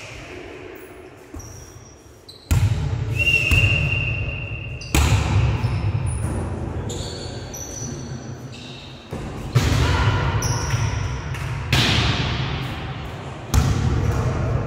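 A volleyball being struck back and forth in a rally in a gym hall: about five sharp hits, each ringing on in the hall's echo. A few short high squeaks, likely sneakers on the court floor, come between them.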